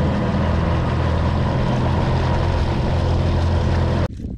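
A boat's motor running steadily at a constant pitch. It starts abruptly and cuts off about four seconds in.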